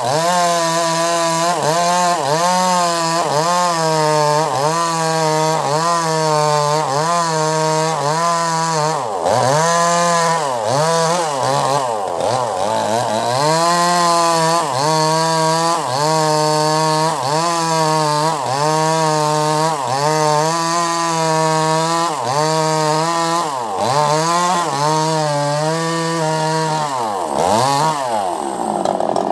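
Two-stroke chainsaw ripping lengthwise through a rambutan log at high revs, its engine pitch sagging under load and recovering about once a second as the chain bites. Around ten seconds in it bogs lower for a few seconds before picking back up.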